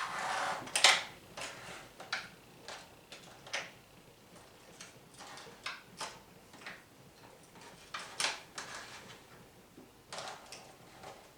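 Light handling noise: a short rustle, then scattered small clicks and knocks at irregular intervals, the loudest about eight seconds in.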